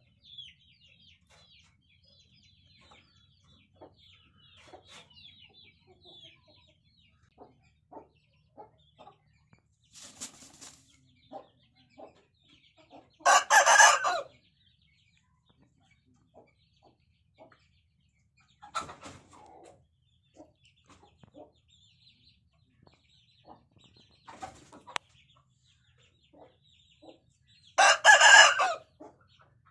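Rooster crowing twice, each crow lasting about a second, the first about halfway through and the second near the end. Softer clucks and faint chirps come in between.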